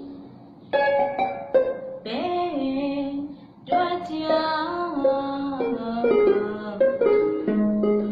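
Saung gauk (Burmese arched harp) plucked in a Myanmar classical song, its notes starting sharply and ringing on. About two seconds in, a woman's voice sings over it in held, sliding notes.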